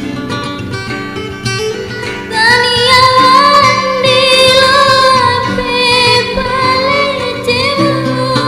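Background music: plucked guitar accompaniment, with a high singing voice coming in a little over two seconds in and carrying a sustained, wavering melody.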